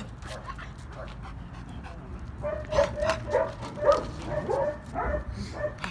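Dog whining in a quick run of short, high, wavering whines that starts about two seconds in: the dog is frustrated, straining to get the bite.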